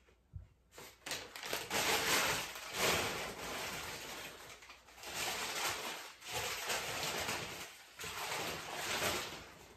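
Crumpled packing paper rustling and crinkling in several long surges as it is pulled out of a cardboard box to unwrap glassware.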